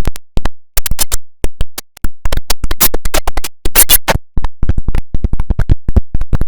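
The IBM OS/2 Warp 3 shutdown jingle chopped into a rapid string of short, sharp stuttering fragments. It is a glitch-style edit that sounds like record scratching, with brief snippets repeating several times a second in an irregular rhythm.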